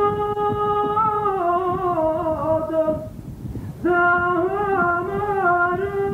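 A wordless vocal melody of long held notes that glide downward. It breaks off about three seconds in and picks up again nearly a second later.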